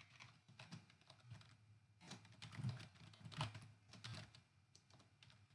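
Quiet, irregular typing on a computer keyboard, the keystrokes coming thickest in the middle.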